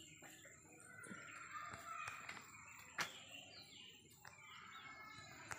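Faint bird chirps, short falling calls repeated at intervals, with one sharp knock about three seconds in.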